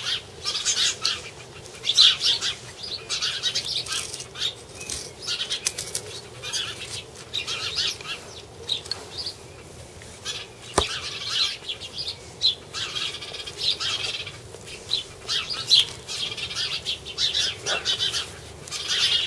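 Irregular rustling and handling noise as a knife and its leather sheath are handled, with birds chirping in the background and one sharp click partway through.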